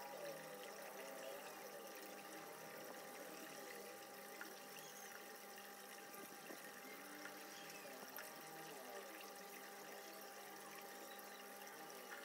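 Near silence: faint room tone with a steady hum and a few soft ticks.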